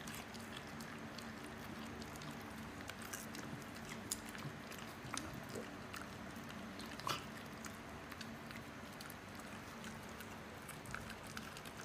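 Faint clicks and mouth noises of dogs licking and nosing at the tiled floor, with one sharper click a little past halfway, over a low steady hum.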